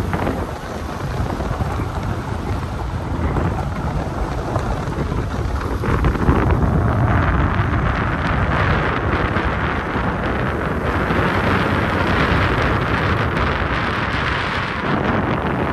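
Wind buffeting a phone's microphone held out of the window of a fast-moving vehicle, with the vehicle's low rumble underneath.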